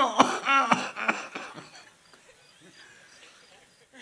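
A man's comic imitation of a wheezing, hacking smoker's cough, as after a hard pull on a ganja chillum, for about the first two seconds. It then dies away to near quiet.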